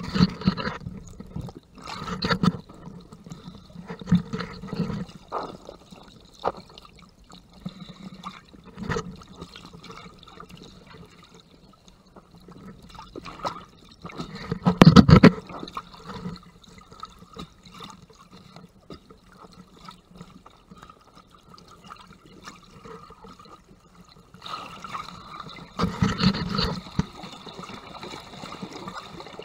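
Muffled underwater water noise picked up through a GoPro's waterproof housing while snorkeling: uneven swishing and sloshing surges, the strongest about halfway through and another near the end.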